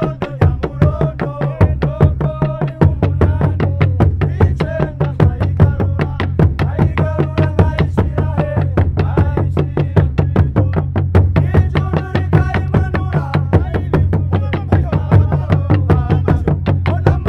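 An ensemble of traditional Burundian drums (karyenda) beaten with wooden sticks in a fast, steady rhythm, with men's voices singing over the drumming.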